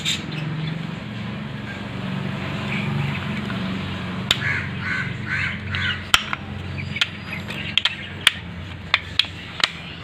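Sharp metallic clicks and taps as motorcycle drum-brake shoes and their return springs are handled and seated onto the backing plate, coming several times in the second half. Crows caw in the background over a steady low hum.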